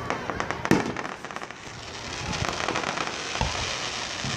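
Fireworks shells bursting: a few sharp bangs near the start, the loudest under a second in, then a dense, continuous crackling from glittering crackle stars.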